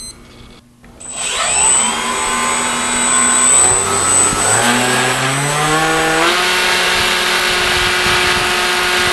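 RC airplane motor spinning up a folding propeller for a static-thrust test. The pitch climbs in several steps as the throttle is advanced, then holds steady at full power from about six seconds in. A high thin whine accompanies the spin-up and stops when the pitch levels off.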